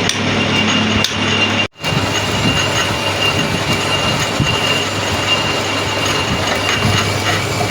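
A metal-working lathe running steadily, with a thin high squeal over its mechanical noise. The sound drops out sharply for a moment about two seconds in.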